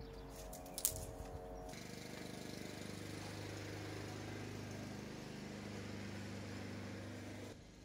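A motor running steadily with a low hum, starting abruptly about two seconds in and cutting off suddenly near the end. Before it come scattered clicks over a faint steady tone.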